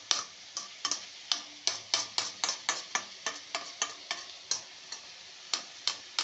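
A spoon knocking and scraping against the pan as the simmering onion, tomato and potato masala filling is stirred, in quick regular strokes of about three a second, with a short pause and then a few more strokes near the end.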